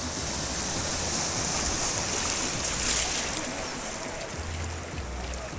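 River water rushing and churning through a small rapid around a kayak: a steady hiss of white water that swells a little about three seconds in.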